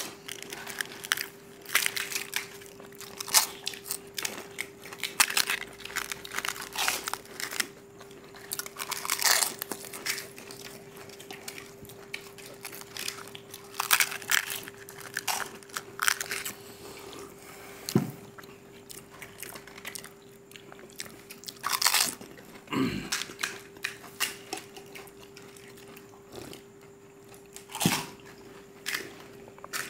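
Several people crunching and chewing pani puri: the crisp, hollow fried puri shells crack as they are broken open and bitten, in short irregular bursts of crunching. A faint steady hum runs underneath.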